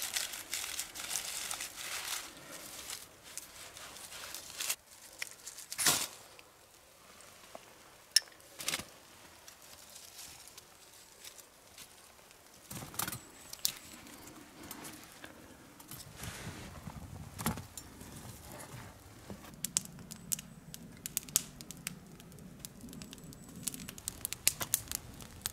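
Bark tinder being torn and crumpled by hand, then a few sharp clicks as the small steel folding wood stove (bush box) is lit. From about two-thirds of the way in, the kindling fire in it catches, with a low rush of flame and small crackles.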